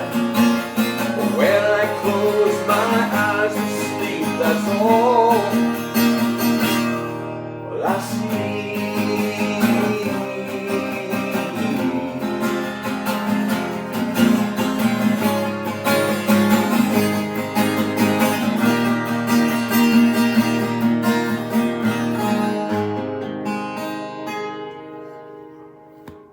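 Acoustic guitar strummed through the closing bars of a song, with the last sung notes held over the first few seconds. The final chord rings out about 23 seconds in and fades away.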